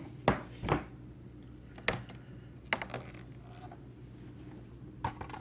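Hard plastic CGC grading slabs being handled and set down: a few sharp clicks and taps spread across several seconds.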